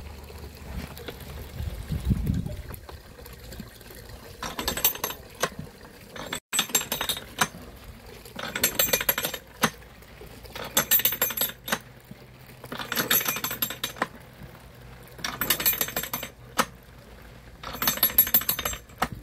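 Ratcheting screw mechanism of a traditional wooden basket cider press clicking in short bursts about every two seconds as the handle is worked back and forth to press down on the apple mash. Fresh cider trickles from the press spout into a plastic bucket.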